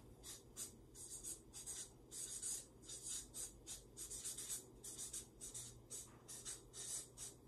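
Marker pen writing on a paper flip chart: a quick run of short, faint scratchy strokes.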